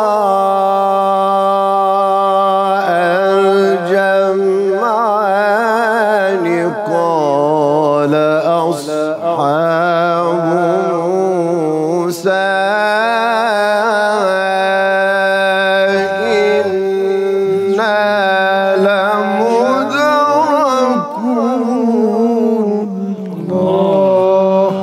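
Solo male Quran recitation in melodic maqam style (tajweed/tilawa), singing 'qāla aṣḥābu Mūsā innā lamudrakūn' (Qur'an 26:61) in long held notes with wide vibrato and ornamented turns, pushed high in the voice's range.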